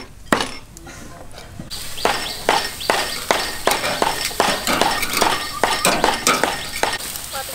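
Metal tongs clicking and clacking against a barbecue grill grate and the meat as pieces of beef are turned, about three or four sharp clicks a second, over a steady hiss of meat sizzling on the grill.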